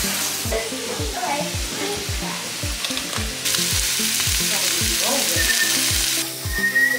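Chopped onion, carrot and celery sizzling in a soup pot, loudest for a few seconds in the middle, over background music with a steady low beat.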